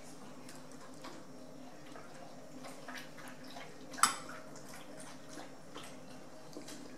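A metal spoon in a small ceramic bowl as someone eats, with one sharp clink against the bowl about four seconds in and faint small clicks between.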